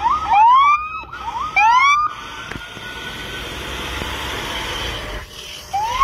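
Fire engine's siren giving short rising whoops, two loud ones in the first two seconds, then the truck running as it drives close past, and another whoop near the end.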